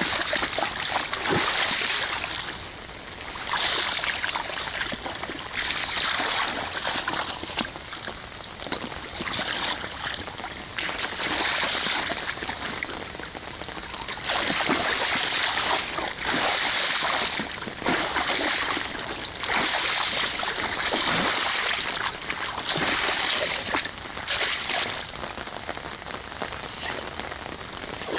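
A boxer dog splashing about in a shallow rain puddle: repeated bursts of splashing and sloshing water, each a second or two long, with quieter spells between.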